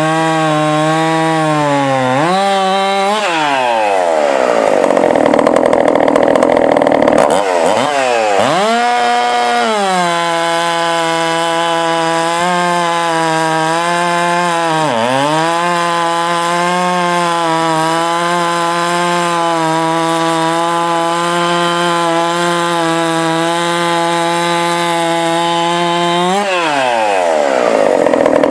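Top-end ported Husqvarna 372XP 71cc two-stroke chainsaw running hard: it revs up sharply about 3 s in to a high, loud scream, drops back near 7 s, then holds at high revs with short dips before revving up again near the end.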